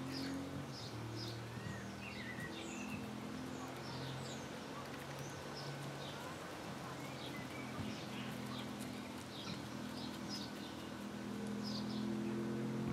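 Small garden birds chirping in quick, high, scattered notes over the low, drawn-out murmuring clucks of hens.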